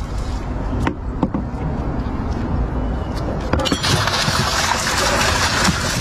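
Small aluminium fishing boat under way close to a bank: a steady low rumble with a few knocks in the first half, then from a bit past halfway a louder, even rushing of water along the hull.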